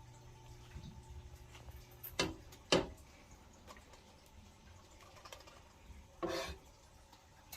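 Kitchen handling noises while food is being prepared: two quick scrapes or knocks about half a second apart a couple of seconds in, then a longer scrape a little past six seconds, over a low steady hum.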